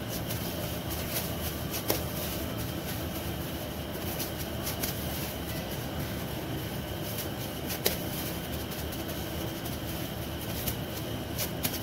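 Steady mechanical hum in the room, with a few sharp crinkles and clicks from plastic disposable gloves as hands pat and shape a soft potato-chicken cutlet mixture.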